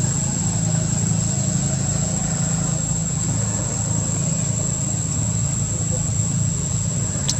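A steady low engine drone, even throughout, with a constant high-pitched whine above it.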